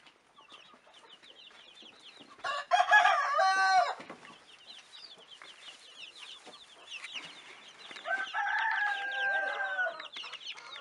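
Chicks peeping constantly in a brooder. An adult chicken calls loudly twice over them: a stepped call about two and a half seconds in, and a longer held note about eight seconds in.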